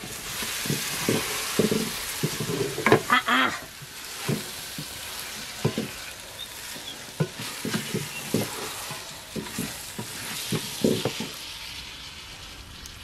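Wooden spoon stirring raw rice into a sizzling meat and tomato mixture in an aluminium pot: rice frying in the fat before the broth goes in. Repeated scrapes and knocks of the spoon against the pot sound over a steady frying hiss.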